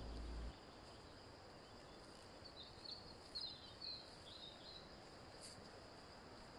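Near silence: faint room tone, with a few faint high chirps around the middle.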